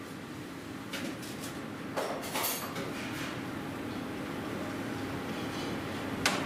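A few soft taps as a metal spoon and fingertips set grapes on a ceramic plate, with one sharper clink near the end, over a steady kitchen hum.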